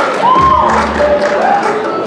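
Audience cheering and whooping, with rising-and-falling shouts and scattered claps.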